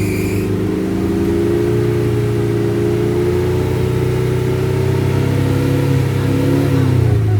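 Off-road 4x4 engine running steadily under load, its revs creeping slowly higher and then dropping near the end.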